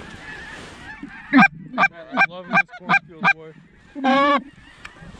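Geese honking close by: a run of six short, sharp honks about three a second, then one longer honk near the end.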